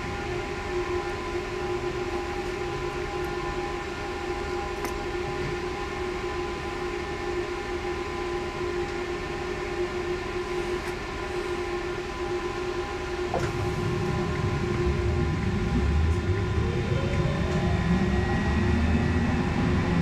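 Trolleybus standing with a steady electrical hum of several tones. About two-thirds in it pulls away: low rumble from the road, and the electric traction drive whines, rising in pitch as it speeds up.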